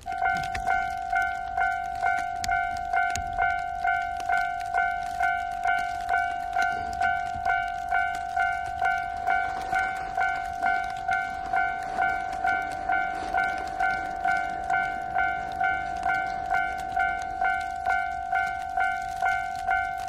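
Japanese railway level-crossing warning bell, the electronic 'kan-kan' alarm, starting suddenly and ringing in a steady repeated beat of just under two strokes a second. It signals that the crossing has activated for an approaching train.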